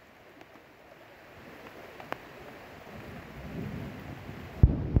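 Muddy floodwater rushing in a swollen creek, with wind buffeting the microphone as a low rumble in the second half. Two sharp knocks near the end are the loudest sounds.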